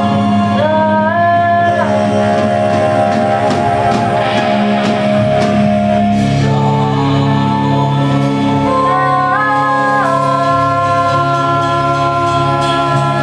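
Live band playing, with singing over electric guitar, bass and drums. The lead line holds long notes and slides up in pitch twice, about half a second in and again around nine seconds in.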